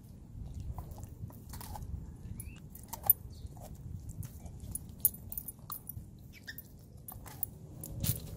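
A Siberian husky mouthing and biting at a whole tomato: a run of small wet clicks and smacks from its teeth and tongue on the fruit, sharpest about three and five seconds in, with faint jingles from its metal collar tags.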